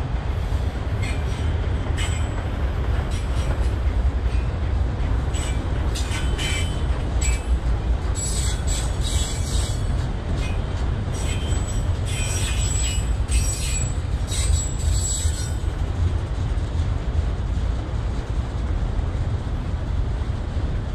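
Freight train of autorack cars rolling past on steel rails: a steady low rumble of wheels on track. From about a second in until about fifteen seconds in, repeated short, high-pitched metallic squeals come from the passing wheels.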